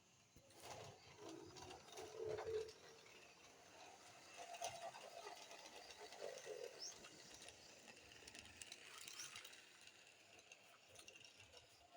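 Near silence: faint background noise with a few soft clicks.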